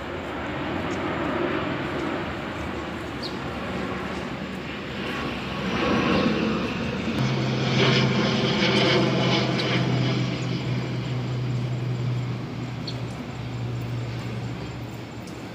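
Engine noise swelling about six seconds in, then a steady low hum that fades near the end.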